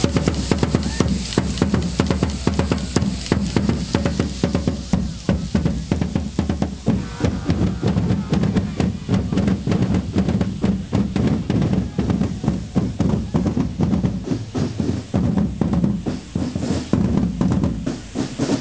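Marching band drums, snare and bass drums, beating a fast, steady rhythm loudly and without a pause.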